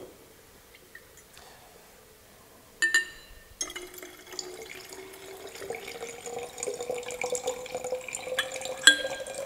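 Lead nitrate solution poured quickly from one glass conical flask into another holding potassium iodide solution: gurgling liquid with a tone that slowly rises in pitch. It is preceded by a short ringing glass clink, and another clink comes near the end.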